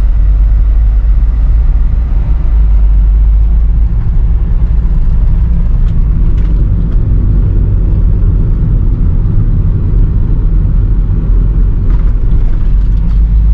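Steady low rumble of a car driving, heard from inside the cabin: engine and road noise, with a few faint ticks.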